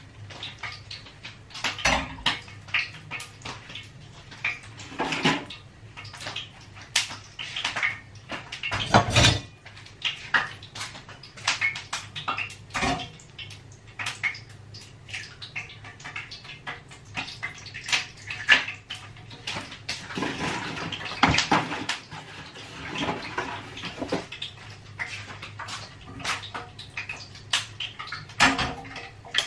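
Irregular clatter of plates, pans and cutlery being handled, with a steady low hum underneath and a stretch of hissing noise about twenty seconds in.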